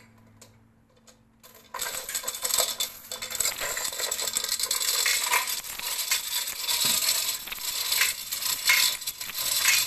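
Steel load chain of a chain block rattling and clinking without a break, starting about two seconds in, as the block is worked to let the test load off.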